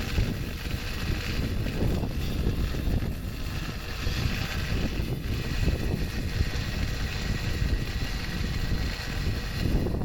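Wind buffeting the microphone, a continuous uneven rumble.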